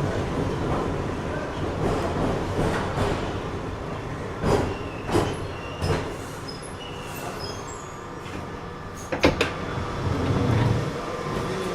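London Underground train heard from inside the carriage as it comes to a stop: the running rumble dies away, three sharp clunks come about halfway in, then a pair of sharp clicks and a short low surge near the end as the door mechanism opens the doors.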